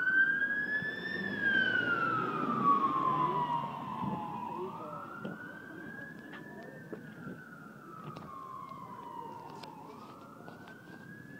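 Emergency vehicle siren in a slow wail, rising and falling in pitch about every five to six seconds, growing fainter as it goes on.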